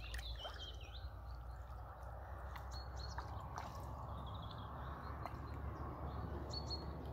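Faint, steady wind rumble and gentle water movement as hands hold a large common carp in shallow lake water, with a few short bird chirps, one near the end.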